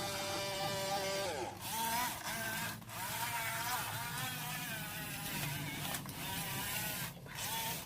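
Small electric motor of a toy RC excavator whining, its pitch wavering up and down as it works. A held electronic tone slides down and stops about a second and a half in.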